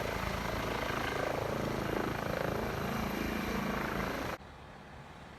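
Medical evacuation helicopter running close by, a steady rotor and engine noise that cuts off abruptly about four seconds in, leaving only a faint hiss.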